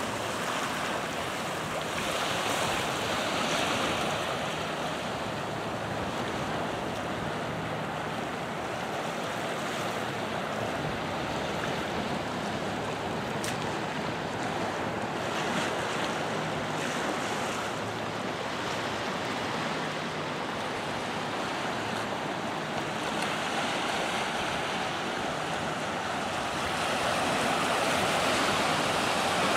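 Small ocean waves breaking and washing in over a rocky, seaweed-covered shore: a steady rush of surf that swells every several seconds and grows a little louder near the end.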